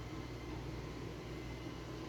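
Steady low background hum with a faint hiss, no distinct events: kitchen room tone.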